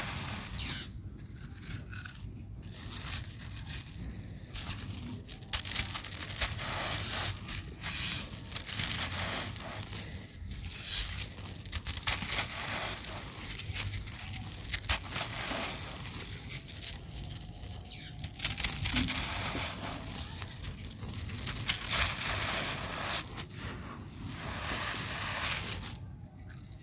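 Gritty dry cement shapes crumbling: dense crunching with many sharp crackles, swelling and easing every few seconds.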